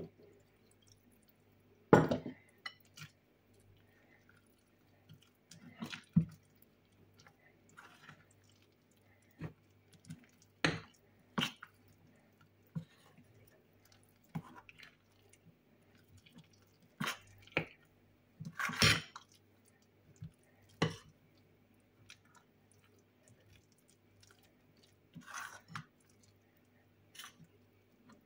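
Metal spoon stirring a thick, wet fritter batter in a glass bowl: irregular squelches and scrapes, with sharp clinks of the spoon against the glass, the loudest about two seconds in and again near the middle.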